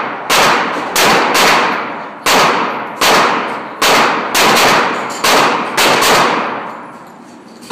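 Handgun shots fired in quick, uneven succession, about eleven in the first six seconds. Each shot has a long echoing decay, and there is a pause of nearly two seconds near the end.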